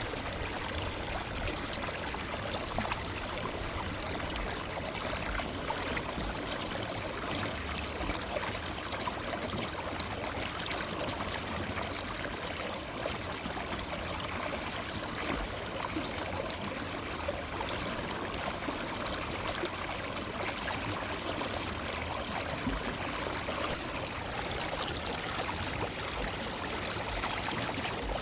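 Forest river flowing steadily over rocks, a continuous rush of water with small splashes and trickles.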